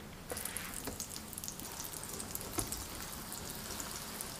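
Hot oil sizzling and crackling in an electric griddle pan as raw chive pockets are laid in one after another.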